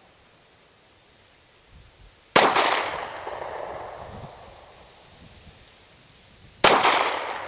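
Two pistol shots from a semi-automatic handgun, about four seconds apart, each a sharp crack followed by an echo that dies away over a second or so.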